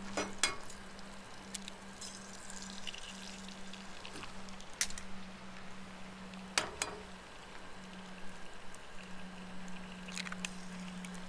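Food sizzling in a frying pan on a two-burner propane camp stove, over a steady low hum. Several sharp clinks and knocks of utensils and cookware, the loudest at the start and just past the middle.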